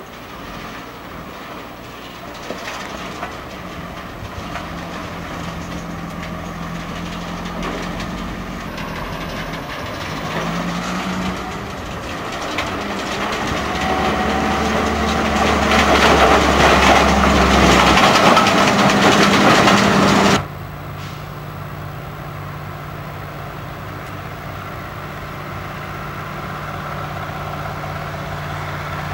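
Diesel log truck running on a gravel road, growing steadily louder as it approaches and loudest for several seconds before the sound cuts off abruptly about two thirds through. A steady, quieter diesel engine runs after the cut.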